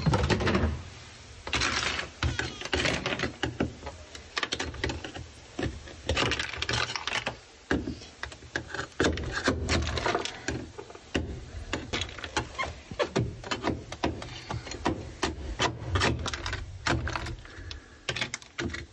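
Frozen sound-deadening mat being chipped and pried off a car's sheet-metal floor pan with a hand tool, with many irregular sharp knocks, cracks and scrapes as brittle pieces break loose.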